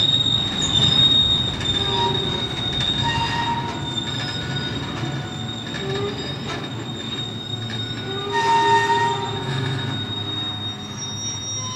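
Double-stack container train's well cars rolling past with a steady low rumble and a continuous high-pitched wheel squeal. Shorter squeals at lower pitches come and go over it, and the sound swells about eight seconds in.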